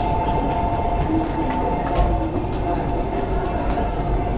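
Electric commuter train running, a steady low rumble with a high, steady whine over it.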